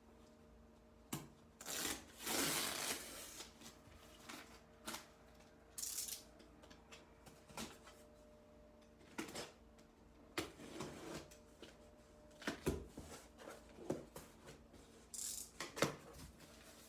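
A parcel being unpacked by hand: irregular rustling, scraping and tearing of packaging, with light knocks and clicks.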